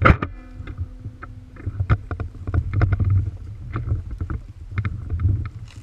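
A sharp knock that rings on briefly in several clear tones, then scattered knocks and clicks over a steady low rumble.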